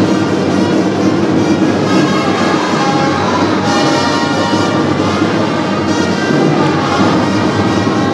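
Instrumental music playing steadily and loudly.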